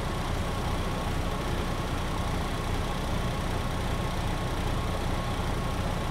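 MAN NG 313 articulated diesel bus heard from inside the passenger cabin: the engine runs steadily with an even low drone and a faint constant high whine.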